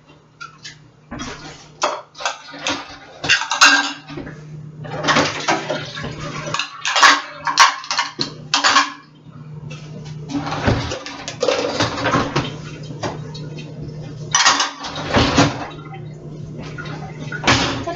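Dishes and cutlery clattering and clinking as they are loaded from the sink into a dishwasher, with a steady low hum behind from about four seconds in.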